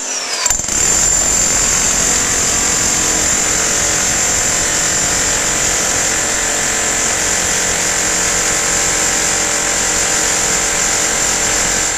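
Electric demolition hammer chiselling into a concrete basement floor to open a sump pit. It runs steadily with a rapid hammering, broken briefly just after the start.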